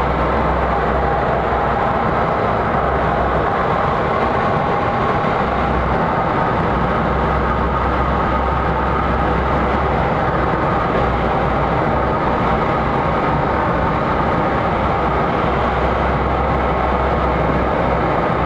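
Steady rush of airflow inside the cockpit of a Schweizer 2-33 training glider under aerotow, with a low rumble that comes and goes.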